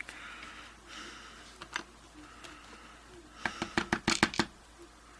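Light, sharp clicks and taps of small metal lock parts being handled, a couple near two seconds in, then a quick run of about eight about three and a half to four and a half seconds in.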